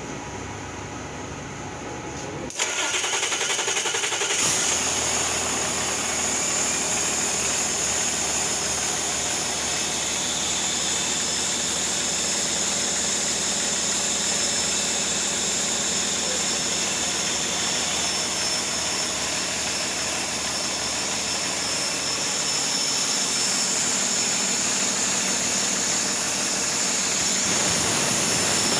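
A 2009 Cummins ISB 6.7L inline-six turbodiesel, on a test stand for a test run of the used engine, is started about two and a half seconds in. The starter turns it for a couple of seconds, then it catches and runs steadily.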